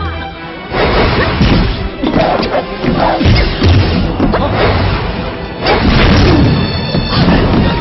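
Dramatic film score over a run of fight-scene sound effects: repeated hits, thuds and crashes.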